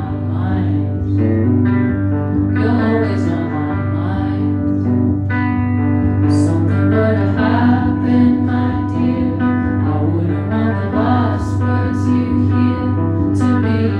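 Live indie rock song: a woman singing over a strummed electric guitar.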